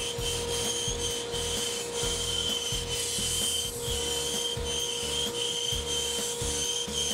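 Bandsaw running with its blade cutting the curved outline of a thick laminated hardwood tray blank. A steady hum carries throughout, with a high whine over it that breaks off briefly several times as the wood is fed.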